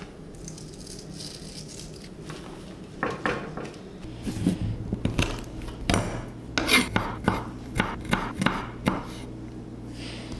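Kitchen knife knocking and clicking on a wooden cutting board as a garlic clove is peeled and chopped. The irregular taps start about three seconds in and come thickest in the second half.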